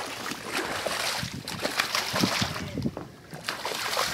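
A hooked striped bass splashing and thrashing at the water's surface in irregular surges, with a short lull about three seconds in.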